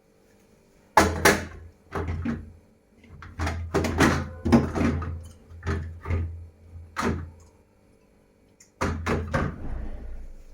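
Irregular knocks and thuds of household items being handled and set down, in several clusters, the first about a second in and the last near the end.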